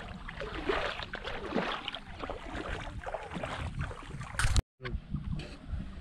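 Outdoor wind noise buffeting the microphone: a low rumble with scattered rustling crackles. It cuts out completely for a split second about three-quarters through, then resumes.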